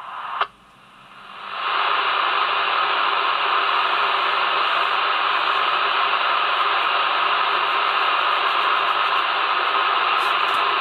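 CB radio receiver hissing with steady static after a station stops transmitting. A sharp click comes about half a second in, then a short quieter gap, and the hiss swells back within about a second and holds.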